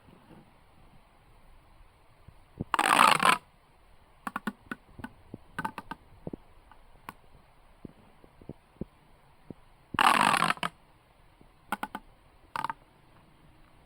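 Scattered small clicks and taps from objects being handled, with two short scraping, rustling bursts about three seconds in and ten seconds in.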